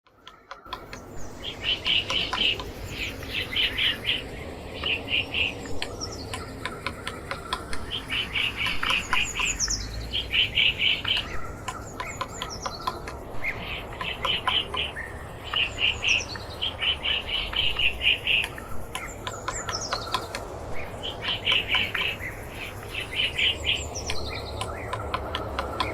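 Woodpecker calling: repeated bursts of rapid, high chattering notes, each about half a second to a second long, with short sharp taps in between.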